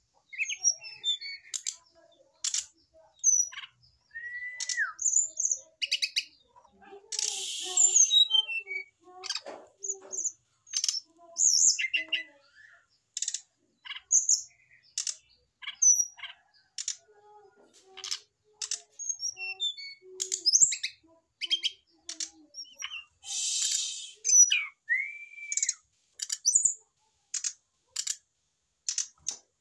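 Brown-chested jungle flycatcher calling: a string of short, sharp, high chirps and ticks at irregular spacing, with two brief harsh rasps and two longer, lower whistled notes that slide down at the end.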